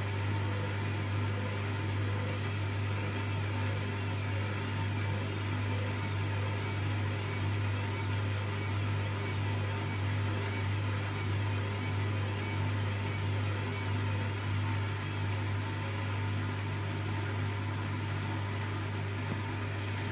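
Hoover washing machine running with a steady low motor hum and whirr that holds one pitch without rising, as the machine struggles to spin.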